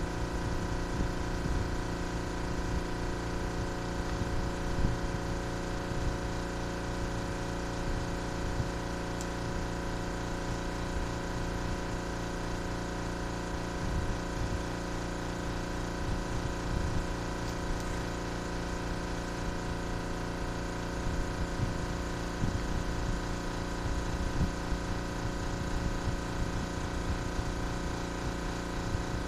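Steady hum of a running motor or machine that does not change throughout, with light irregular knocks as spark plugs are handled on a cardboard-covered table.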